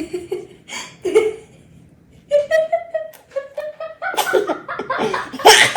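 A child making playful vocal sounds: short noisy bursts, then a hummed or sung tone broken into short notes about two seconds in, then giggling and laughter near the end.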